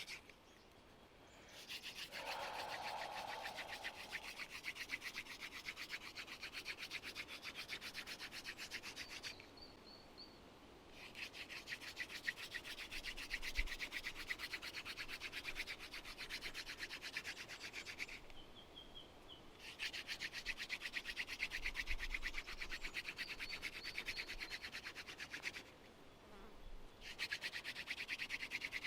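Hand drill friction fire: a xanthorrhoea (grass tree) spindle spun fast between the palms, grinding into a silver wattle hearth board with a quick, scratchy rubbing. It breaks off briefly four times as the hands go back to the top of the spindle.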